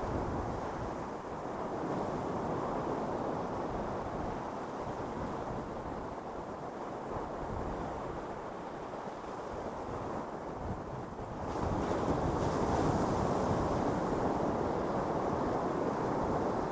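Ocean surf washing steadily onto a beach, with a larger wave breaking and swelling louder about two-thirds of the way through.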